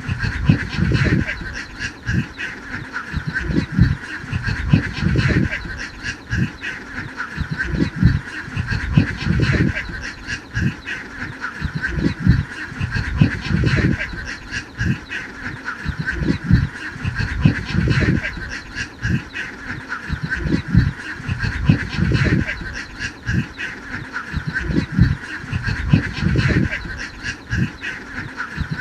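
A large flock of domestic ducks quacking, with many calls overlapping without a break.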